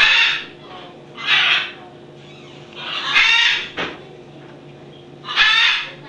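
Parrot chicks calling: four loud, harsh, buzzy calls, each about half a second long and spaced a second or two apart, over a faint steady hum.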